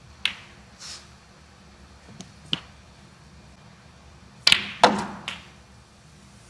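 Snooker cue and balls: a sharp click near the start and two more about two seconds in, then about four and a half seconds in the loudest part, a quick run of four or five clacks as the cue tip strikes the cue ball and the balls knock into one another.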